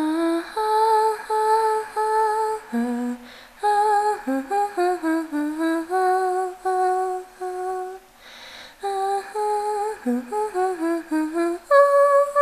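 A woman's voice humming a slow wordless tune on its own, with no accompaniment, gliding between held notes and breaking off briefly twice.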